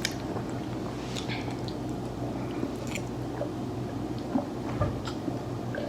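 Close-miked chewing and eating: soft wet mouth clicks and smacks scattered through, over a steady low hum.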